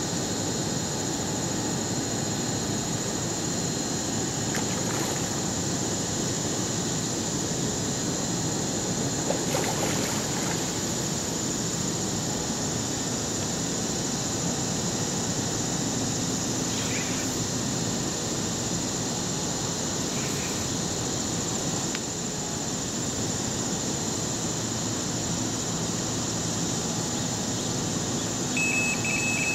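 Steady outdoor background noise: an even low rumble with a high, steady whine above it. A high, steady beep-like tone starts near the end.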